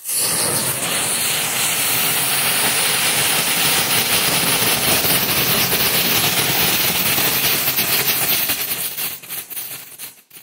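A batch of about eleven strobe light fireworks burning at once: a loud, dense fizzing hiss with rapid crackle that starts suddenly, holds steady, then thins out over the last second or so and stops.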